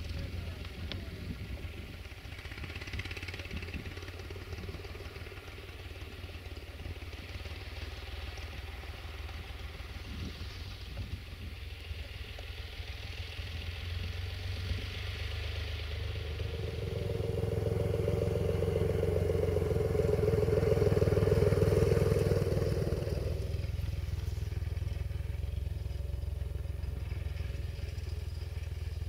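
Farm tractor engine running as the tractor drives over the crossing and along the field road, a steady low rumble that grows louder about two-thirds of the way in and then eases back.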